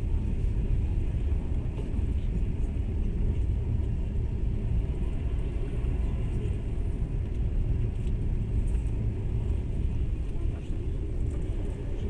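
Passenger train running steadily, heard from inside the carriage: a continuous low rumble of the wheels on the rails, with no distinct rail-joint clicks.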